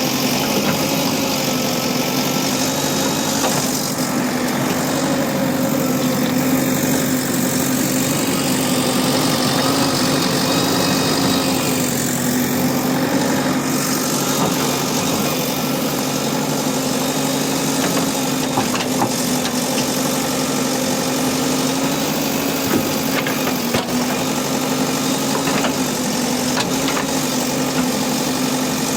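JCB backhoe loader's diesel engine running steadily at an even pitch, with a few short knocks in the second half.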